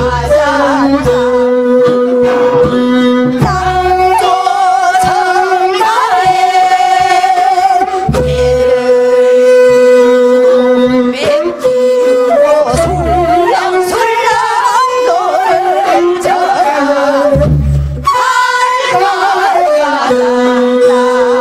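A group of women singing a Korean folk song (minyo) together into microphones, with long held, wavering notes, over an instrumental accompaniment with a recurring low bass.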